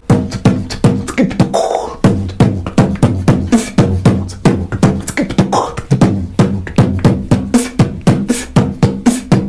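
Beatboxing: drum sounds made with the mouth in a fast, steady rhythm of about four strong beats a second, over a steady low tone.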